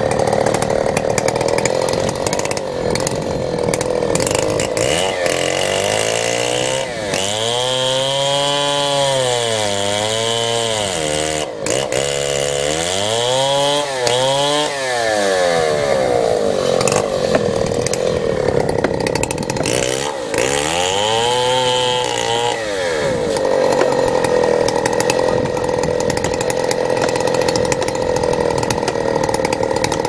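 Two-stroke petrol chainsaw running throughout; its engine note is steady and high at first, then between about five and twenty-three seconds in it falls and rises in several swells as the throttle is eased off and opened again, before settling back to a steady high note.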